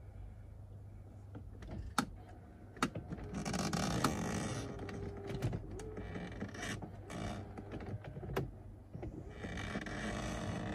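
Hands working plastic dashboard trim and cluster parts behind a BMW X5 E70 steering wheel: several sharp clicks with stretches of rubbing and scraping handling noise between them.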